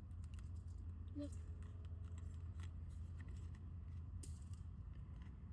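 Faint small clicks and rubbing as rubber grommets are pushed and seated into a car seat's headrest post holes by hand, over a steady low hum.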